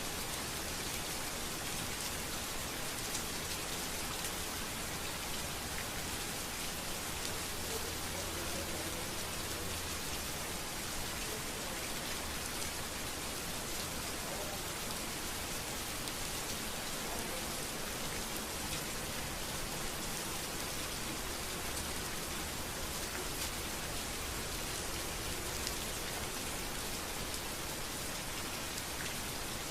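Steady rain falling on a street, a dense, even patter of drops on hard surfaces.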